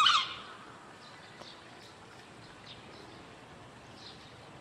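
A macaque gives one short, loud, shrill call right at the start, then only faint high chirps recur in the background.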